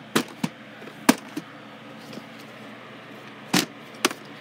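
Plastic clicks and knocks of a VHS cassette and its hard plastic case being handled: about six sharp taps, the loudest a little over a second in, over a faint steady hum.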